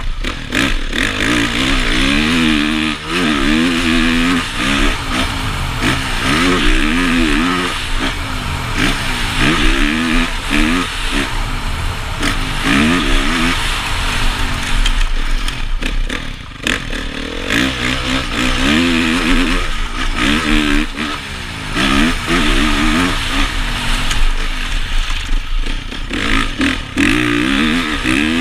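2014 Honda CRF450 motocross bike's single-cylinder four-stroke engine, heard from the rider's helmet, revving up and shifting again and again, each run a rising pitch. Near the middle it briefly shuts off before pulling hard again.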